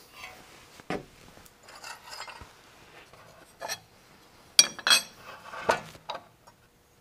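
Metal handling: a knock as the clamp is loosened, then the aluminum mold block sliding out and clinking against the steel machine parts, with a cluster of sharp ringing clinks about two-thirds of the way through, the loudest part.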